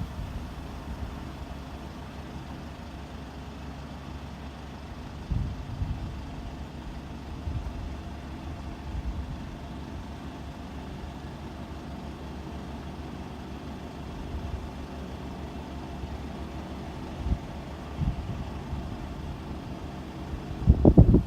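Kubota 128-horsepower six-row combine harvester running with a steady engine hum. A few low thumps break in, the loudest near the end.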